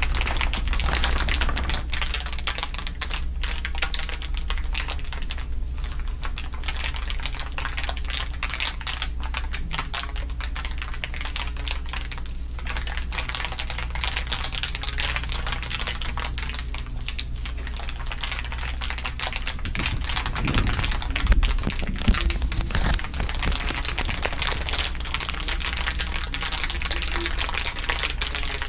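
Dense, continuous crinkling from several layers of crinkle sounds laid over one another, with a steady low hum underneath and a couple of louder crackles past the middle.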